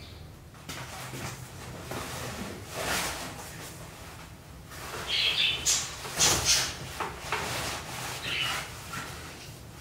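Cloth rustling and handling noise as a denim apron is pulled on and settled, in uneven surges with a few sharper bumps. A few short bird chirps come in about five seconds in and again near the end.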